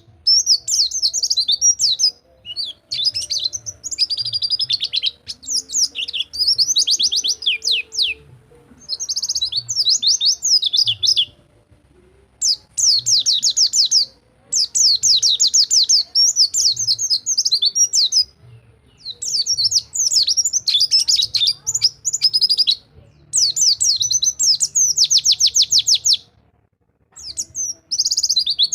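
Pleci (white-eye) singing in bursts of fast, high-pitched rolling trills a few seconds long, with short pauses between phrases: the 'rol tembak' song style played as a master to coax silent pleci into song.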